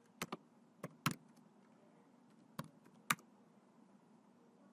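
Faint computer keyboard typing: about six scattered, irregular keystrokes in the first three seconds as an email address is typed in, then a pause.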